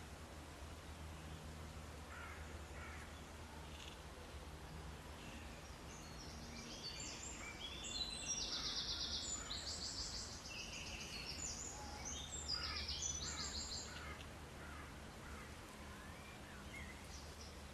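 Several birds calling: a cluster of high, rapidly pulsed calls, overlapping and loudest in the middle stretch, over a steady low rumble of background noise.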